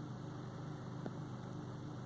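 Steady low hum of an idling vehicle engine over a background hiss, with one faint click about a second in.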